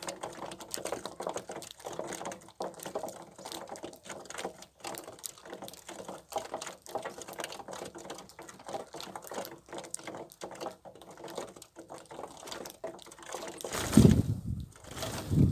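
Rapid, irregular clicking and tapping of small birds pecking at grain put out for them, with two loud low thumps near the end.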